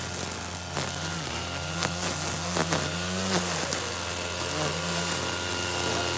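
Gas string trimmer's two-stroke engine running, its pitch rising and falling repeatedly as the throttle is worked while the line cuts grass, with scattered sharp clicks.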